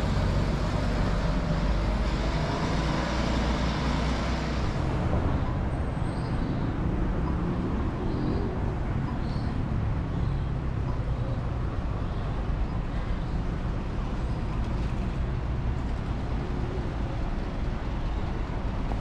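Road traffic on a city street: a steady engine and tyre rumble, louder and brighter for the first few seconds as a bus goes by, then settling to a duller, steadier traffic hum.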